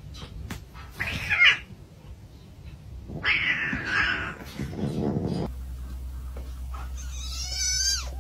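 A cat giving two rough, noisy cries in the first half. Then, near the end, a small tabby kitten lets out a high, wavering meow.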